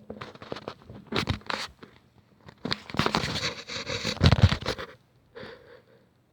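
Irregular rustling, crinkling and scraping, with clicks and a few heavy low thumps a little past the middle, then two faint scrapes near the end.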